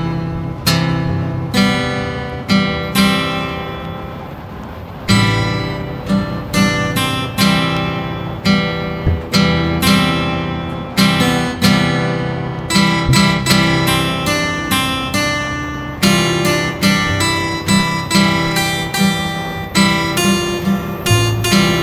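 Background music of strummed and plucked acoustic guitar chords, with a chord left to fade out about four seconds in before the strumming resumes.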